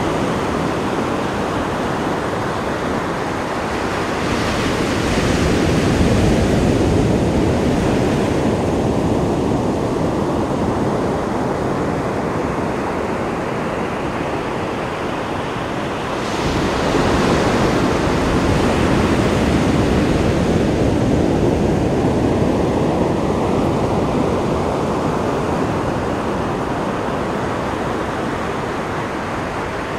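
Ocean surf: waves breaking and washing up on a beach in a continuous wash, with one surge building about four seconds in and another swelling up suddenly at about sixteen seconds, each slowly ebbing away.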